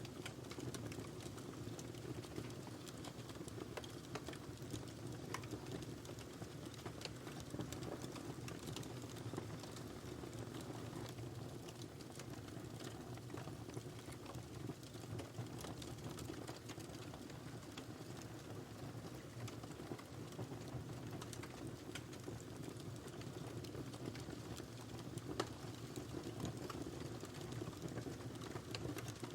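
Wood fire burning in a fireplace, with a steady low rush of flame and irregular small crackles and pops, one sharper pop near the end.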